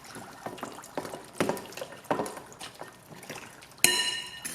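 Dry ice bubbling in a bowl of water, with scattered sharp plops and pops. Near the end a louder clink on the bowl rings briefly.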